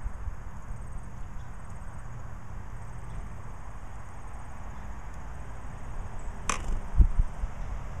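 Low steady rumble of distant road traffic under a faint high insect trill. About six and a half seconds in comes a short sharp swish, followed at once by a low thump, the loudest sound.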